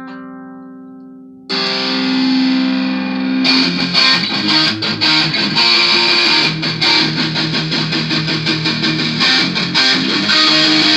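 Intro music led by a distorted electric guitar: a ringing chord fades out, a louder chord is struck about a second and a half in, and the full band comes in with a steady beat about three and a half seconds in.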